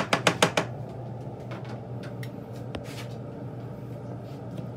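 A plastic spatula tapped quickly several times against the rim of a nonstick frying pan in the first half-second, then a few lighter knocks, over a steady low hum.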